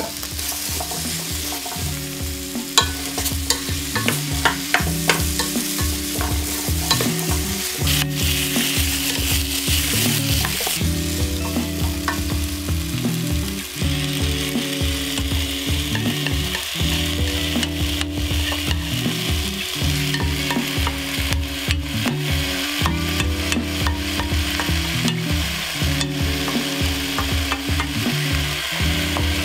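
Diced beef, carrot and potato chunks frying in a pot while they are stirred with a wooden utensil. There are clicks and scrapes against the pot in the first few seconds, and the sizzling grows stronger about halfway through.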